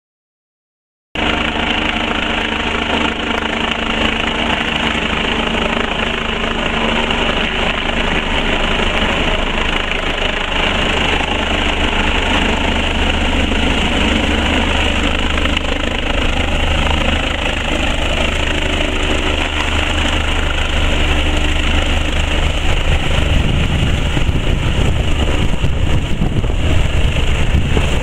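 Eurocopter Colibrí helicopter flying close: a steady turbine whine over rotor noise, starting suddenly about a second in. The low rumble grows louder near the end as it comes in low.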